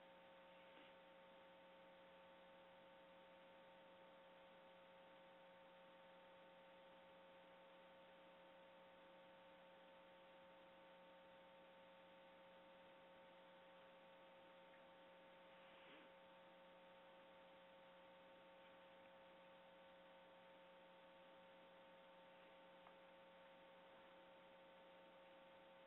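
Near silence with a faint steady electrical hum in the recording line.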